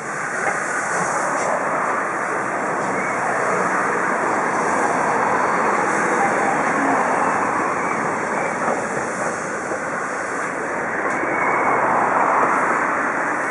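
DR Class 44 three-cylinder steam locomotive hissing steam as it rolls slowly at walking pace, a steady rushing sound that swells and eases.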